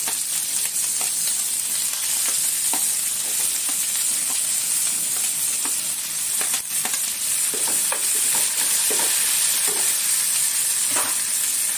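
Onion, garlic and spices frying in hot oil in a frying pan, a steady sizzle, as chopped tomatoes and coriander are tipped in from a steel bowl. Scattered clinks and knocks of the bowl and a steel spoon against the pan run through it, with stirring near the end.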